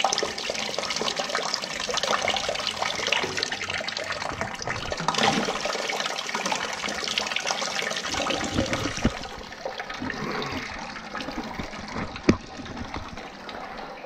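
Water pouring from a steam boiler's opened pipe fitting and splashing into a bucket of sludgy water, flushing mud out of plugged piping to the low-water cutoff. The flow gets quieter about nine seconds in, and a single sharp knock sounds near the end.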